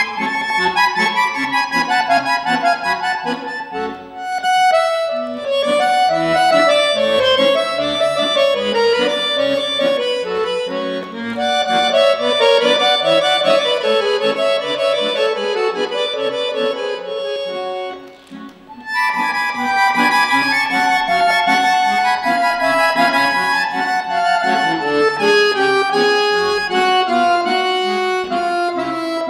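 Solo piano accordion playing a fast, busy passage of runs and chords, with a brief pause about two-thirds of the way through before the playing resumes.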